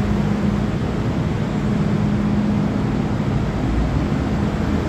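MTR Kwun Tong line M-Train electric multiple unit starting to pull out of the platform: steady train running noise with a low hum, growing a little louder near the end as it gathers speed.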